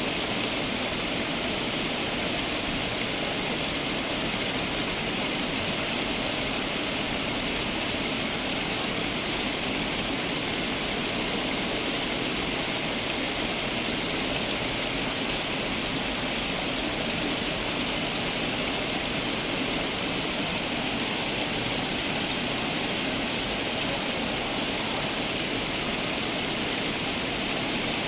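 Garden fountain's water falling and splashing in a steady, unbroken rush.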